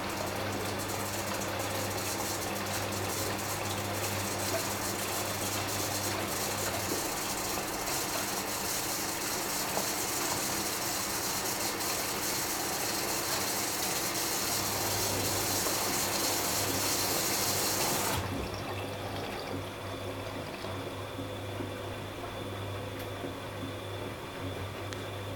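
Bosch WFK2801 washing machine with water rushing through it over a steady low hum. The rushing cuts off suddenly about 18 seconds in, leaving a quieter hum.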